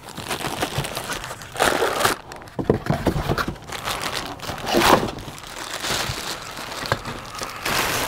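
Plastic packaging bag crinkling and rustling in irregular bursts as the crossbow stock assembly wrapped in it is pulled out of its cardboard box.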